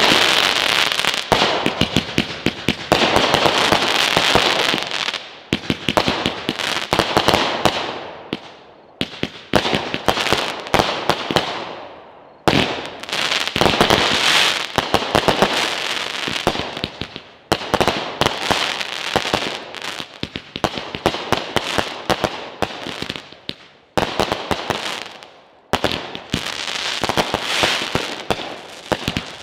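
Consumer fireworks going off in a dense volley: rapid bangs and crackling stars in waves every few seconds, each wave dying away before the next starts.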